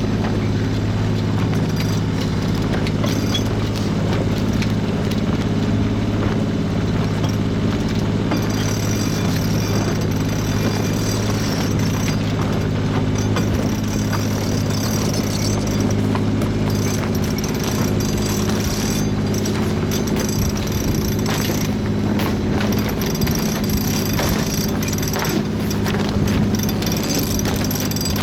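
Sailboat's engine running steadily at a constant speed, a low even drone.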